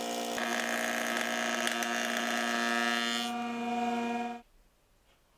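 Kity 636 jointer running with a steady hum while its cutter head planes a 2.5 mm pass off a block of ash. The high cutting noise eases off about three seconds in, and the whole sound stops abruptly about four and a half seconds in.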